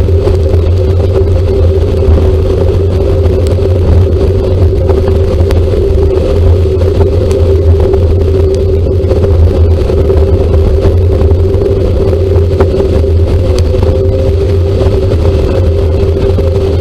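A motor vehicle running steadily, heard from inside: a loud low rumble with a constant two-tone hum above it and a few faint ticks.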